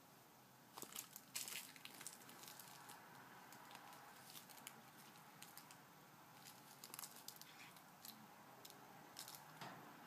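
Faint, irregular crinkling and rustling as a cat bites, clutches and kicks at a plush toy, with small clusters of crackles about a second in, around seven seconds and again near nine seconds.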